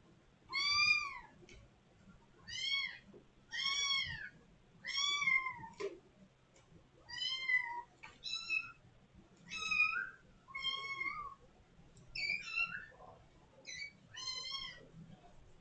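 Kitten meowing loudly over and over: about eleven high, arching meows, roughly one a second. It is a kitten's call to be let out at the door.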